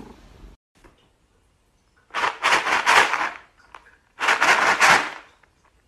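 A person calling a cat with rapid 'pspsps' hisses, two runs each about a second long.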